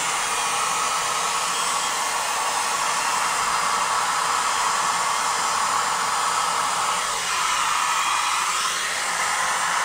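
Handheld hair dryer blowing steadily, its hot air aimed at a stretch-ceiling film to heat out wrinkles near the wall edge.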